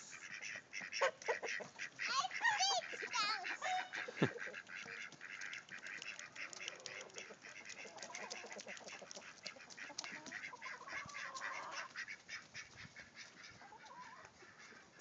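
Domestic ducks quacking and honking as they are chased. The calls are loudest and most frequent in the first few seconds, then fade to scattered fainter calls, over a running patter of short clicks and crackles.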